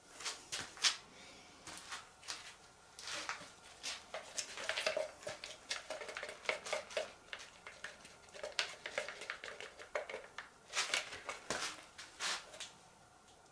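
Irregular clicking, clattering and rustling of small hard objects being handled, in quick clusters that stop near the end.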